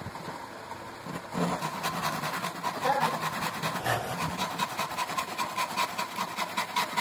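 Rapid, regular rasping strokes on wood, several a second, starting about a second in, with a steady high hum underneath.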